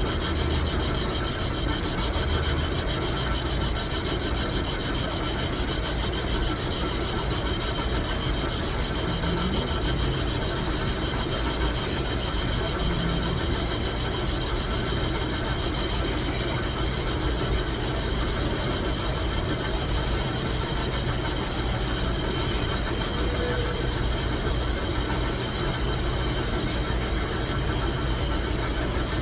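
Metal lathe running steadily, an unchanging mechanical noise with several constant whining tones.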